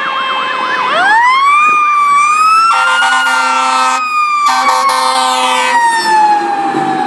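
Fire engine running its sirens on a call: a fast yelping siren, then about a second in a siren wail sweeps up and slowly falls. Two long air-horn blasts sound over it in the middle.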